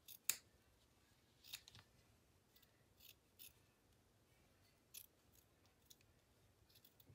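Scissors snipping through thin fabric: a handful of short, separate cuts with pauses between them, the sharpest one about a third of a second in.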